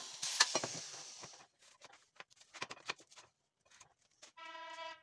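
Hand-held electric drill whirring briefly and spinning down, with sharp clicks, then light knocks and clicks of metal parts being handled. A short steady tone sounds near the end.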